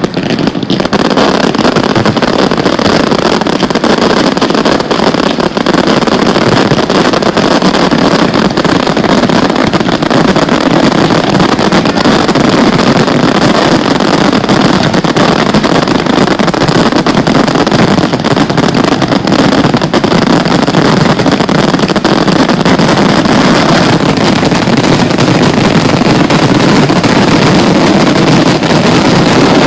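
Professional fireworks finale barrage: aerial shells bursting so fast that the bangs and crackle merge into one continuous loud rumble.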